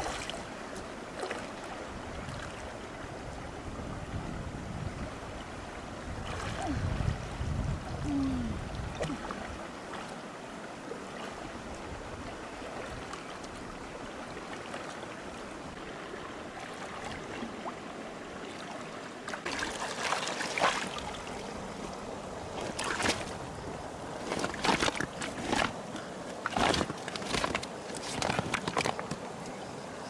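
Shallow stream water sloshing and splashing as a person wades and rinses a large freshwater mussel in it, with heavier splashing in the first second and again around seven to nine seconds in. From about twenty seconds in, a string of short, sharp splashes and knocks.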